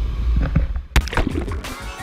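A steady low rumbling noise that cuts off just before a second in, where music with sharp beats and a melody starts.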